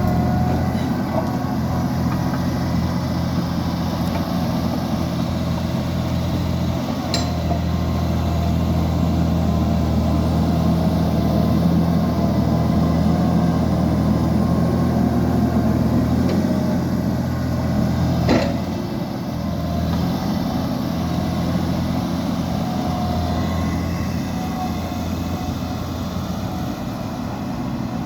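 Liebherr 754 crawler dozer's diesel engine running steadily under load, its note rising and falling a little, with two sharp metallic knocks, one about a quarter of the way in and one about two-thirds through.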